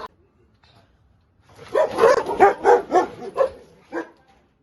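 Dog barking: a quick run of about eight barks starting about one and a half seconds in, then a single bark near the end.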